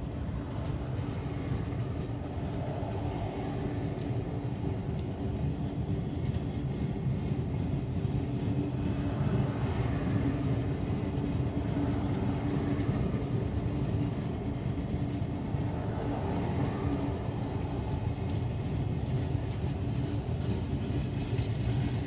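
Freight train of boxcars and refrigerator cars rolling past at a steady speed: a continuous rumble of steel wheels on the rails with faint scattered ticks.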